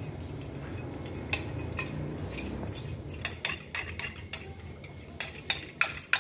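Metal utensil clinking against a ceramic bowl while beaten egg is stirred. A few scattered clicks at first, then quicker, regular taps from about halfway, the loudest near the end.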